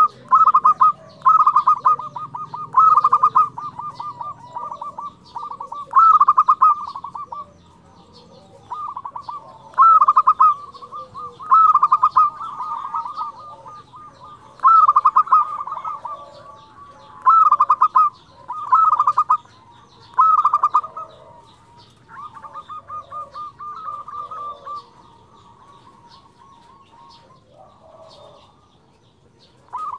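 Zebra dove (perkutut) singing its flute-like cooing song: rapid trills of staccato notes, with a loud phrase every couple of seconds and softer runs between. It turns quieter and sparser after about twenty seconds.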